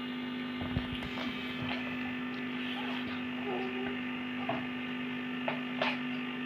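Steady electrical hum, with a few faint short squeaks and clicks as a toddler handles and blows into a latex balloon.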